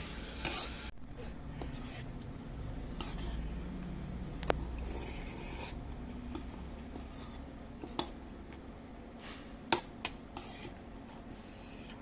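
Spoon clinking and scraping against a bowl while eating, with a handful of sharp clinks spread through, one of them ringing briefly and the loudest about ten seconds in.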